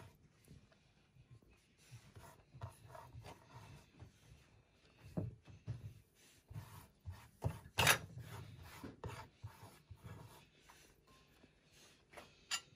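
Faint, on-and-off rustling of grated carrot and lettuce being spread by hand in a glass salad bowl, with a few soft knocks; the sharpest click comes about eight seconds in.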